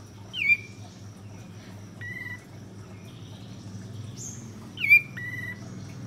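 Olive-winged bulbul (kapas tembak) calling: two loud, sharp notes, each sliding quickly downward, about four and a half seconds apart, with shorter flat whistled notes between and after them, over a low steady hum.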